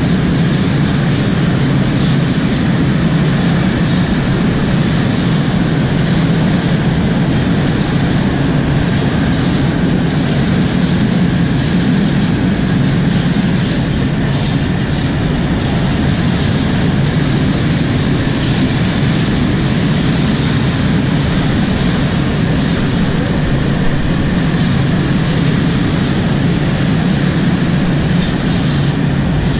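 A freight train's covered wagons passing close by at speed: a steady, loud rumble of steel wheels on the rails, with scattered clicks.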